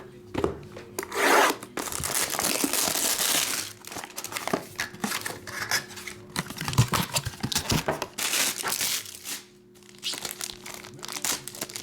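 Plastic wrapping crinkling and tearing in irregular bursts as a trading-card box is unwrapped and opened.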